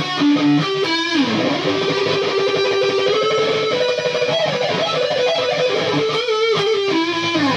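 Electric guitar lead played on a Gibson Flying V: a short phrase with string bends about a second in and near the end, and a long held note with vibrato in the middle.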